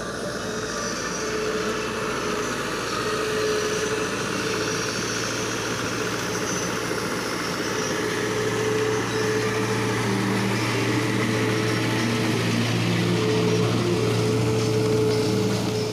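Mahindra 575 DI tractor's diesel engine running steadily as it works a flooded paddy field, a little louder from about eight seconds in.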